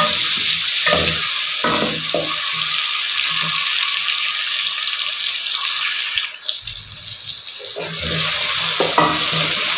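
Freshly added tomatoes sizzling in hot oil with fried onions and ginger-garlic paste in an aluminium pot, stirred with a wooden spoon. The steady hissing sizzle eases briefly about two-thirds of the way through.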